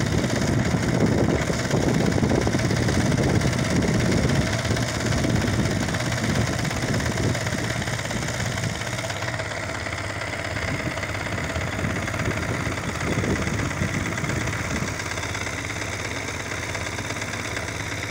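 Small engine of a wooden boat running steadily, a little quieter in the second half.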